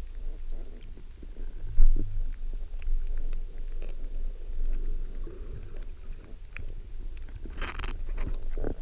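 Underwater wash of waves breaking overhead, heard through the camera's housing: a steady low rumble with scattered crackling clicks, a low thump about two seconds in, and a short hiss of churning water near the end.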